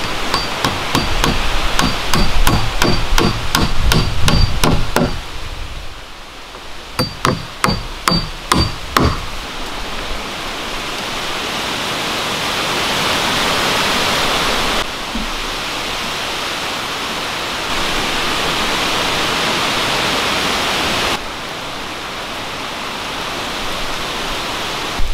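A hammer striking in a quick run of blows, each with a short metallic ring, then a handful more after a brief pause. After that comes a steady hiss of rain falling on the forest, with a few abrupt changes in level.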